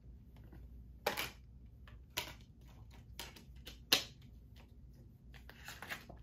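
Handling noise from a metal Blu-ray SteelBook case: a few sharp clicks and taps, the loudest about four seconds in, and a short rustle near the end.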